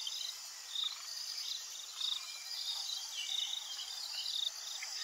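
Several insects chirping together: many short, high, trilled chirps that overlap and repeat a few times a second.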